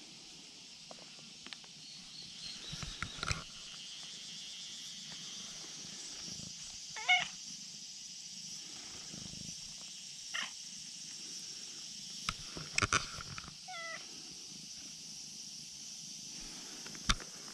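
Brown tabby-and-white cat meowing twice, short calls while being petted, with a few sharp taps in between.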